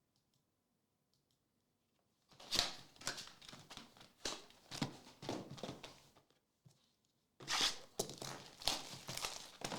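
Foil trading-card pack wrappers being torn open and crinkled, in two spells of crackly rustling: one starting about two seconds in, another near the end.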